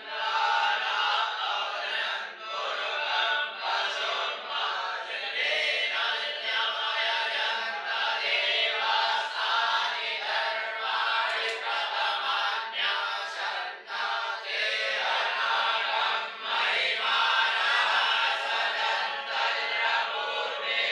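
Many voices chanting a mantra together in unison, a continuous group chant with only brief dips for breath.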